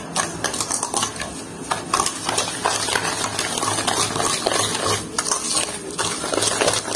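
Hand whisk beating eggs and sugar in a mixing bowl: quick, uneven clicking and scraping strokes against the bowl.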